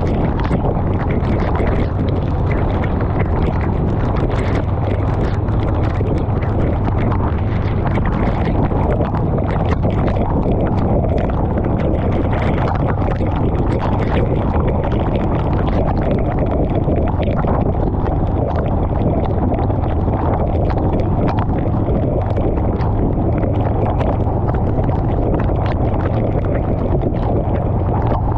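Honda Rebel 500 motorcycle cruising at a steady speed on a wet road in rain: wind rushing over the camera microphone on top of a steady low drone from the parallel-twin engine and tyres, with frequent tiny ticks. The pace holds even throughout, with no revving or gear changes.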